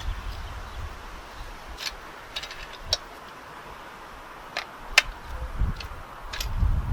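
A scattered series of sharp light clicks and taps, about seven in all, the loudest about five seconds in, over a low rumble.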